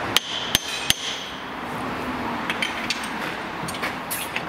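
Three sharp hammer blows on the steel front suspension parts of a Land Rover Discovery 3, ringing metallically, followed by lighter metal clinks. The parts are being knocked into line so the control-arm bolt can go in.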